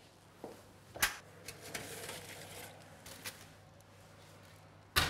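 An oven door being opened and a foil-lined baking tray pulled out with oven gloves: a sharp knock about a second in, then rustling and scraping of metal and foil, and a louder knock near the end, over a low steady hum.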